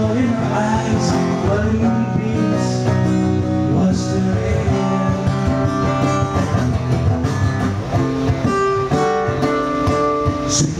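Acoustic-electric guitar strummed live, playing the chords of a song.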